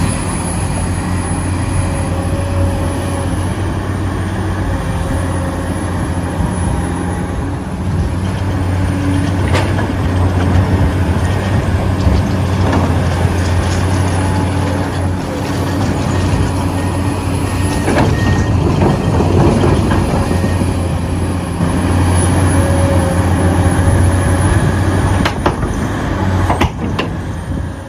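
Radio-controlled excavator running steadily: a strong low hum under a high, wavering whine, with a few scattered clicks.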